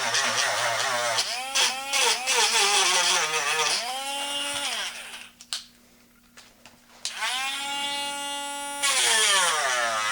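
Dremel rotary tool grinding down a wooden dowel plug, its whine wavering in pitch as it bites into the wood. It winds down and stops about five seconds in, then spins back up about two seconds later and goes back to grinding.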